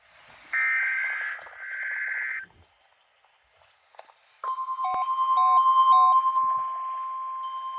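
NOAA Weather Radio emergency alert test signal: two short bursts of screeching SAME digital data, a pause of about two seconds, then the steady 1050 Hz warning alarm tone comes on and holds. Over the tone runs an intermittent beeping, about two beeps a second.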